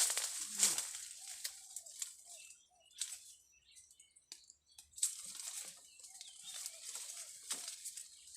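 Rustling and crackling of leaves and twigs with scattered sharp clicks, as foliage is handled, going almost quiet for a couple of seconds in the middle. A few faint short bird chirps come about a second in and again near six seconds.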